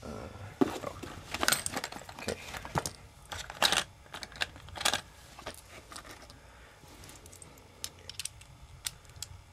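Clicks, knocks and light rattles of small hard objects being handled: a screwdriver and the plastic GPS unit picked up, set down and turned over. The sounds come thick in the first half and thin out to scattered ticks later.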